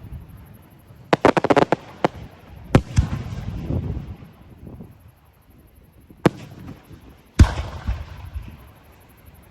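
Aerial fireworks bursting: a quick cluster of crackling reports about a second in, then single sharp bangs spaced a few seconds apart, the loudest near the end followed by a rumbling echo.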